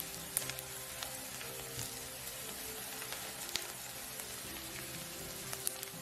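Chopped onion and garlic sizzling steadily in butter in a nonstick frying pan, with scattered sharp pops and ticks as a spatula stirs them.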